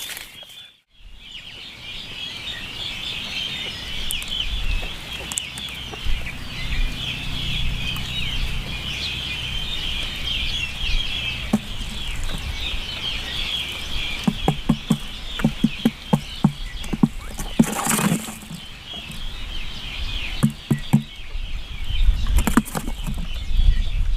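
Many birds chirping steadily, with a series of low, evenly repeated clucking calls in the second half and a brief rustle or flutter about eighteen seconds in.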